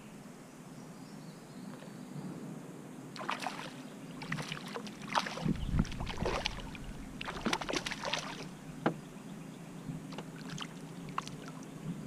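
A hooked smallmouth bass thrashing at the water's surface beside the canoe, in irregular bursts of splashing from about three seconds in, with a couple of dull thumps.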